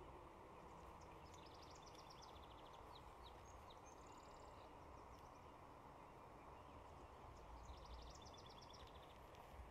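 A songbird singing twice, each time a quick trill of repeated high notes: about a second in and again near the end. Under it runs a faint steady rush of the river.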